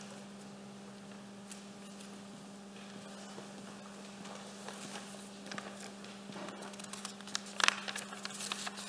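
Quiet church room tone: a steady low electrical hum with faint rustling and small knocks from people settling, the clearest a couple of sharp knocks about seven and a half seconds in.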